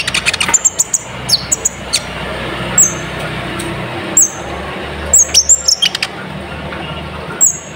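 Olive-backed sunbird (kolibri ninja) singing: clusters of sharp, high chirps and short falling notes, over a steady low background hum.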